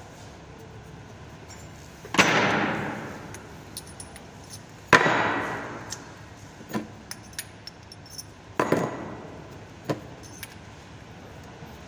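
Three loud metallic clanks, each ringing out for about a second, with lighter clicks and taps between: steel tools and clamp chain knocking against a chain-clamped drill rig and the steel sprinkler pipe it sits on, with the drill motor off.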